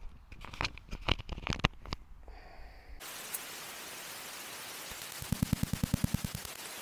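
A few handling clicks and knocks, then the steady hiss of a bat detector cuts in about three seconds in. Near the end comes a quick, even crackle of about a dozen pulses over a second: the ultrasonic rattle of a Campark T80 trail camera, brought down into hearing range by the bat detector.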